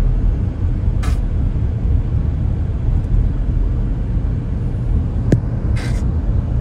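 Steady low rumble of a large outdoor fountain's water jets mixed with street noise. Two short hissing whooshes come about a second in and near the end, with a sharp click just before the second.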